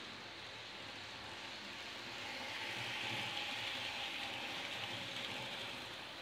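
H0-scale model train running along the layout track: a steady rolling whir of wheels on rails and motor, swelling for a few seconds in the middle as the train draws nearest.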